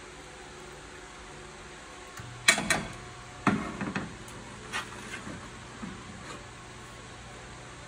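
A china plate knocking and clinking against a glass-ceramic cooktop as it is set down: one sharp knock about two and a half seconds in, the loudest, a cluster of knocks about a second later, then a few lighter taps, over a steady low hum.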